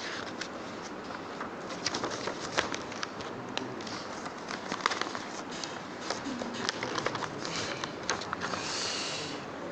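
Steady hiss dotted with many scattered clicks and crackles, with a brief hissing burst near the end.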